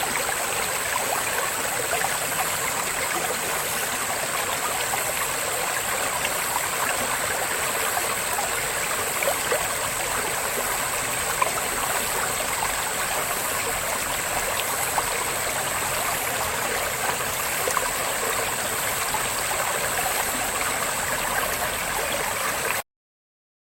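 Babbling brook, water running and trickling steadily, under a loud, constant high-pitched cicada drone. The sound cuts off suddenly near the end.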